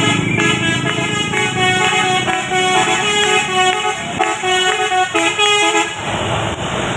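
A bus's basuri "telolet" musical horn playing a quick melody of short stepped notes, stopping about six seconds in, when a broad noisy rush takes over.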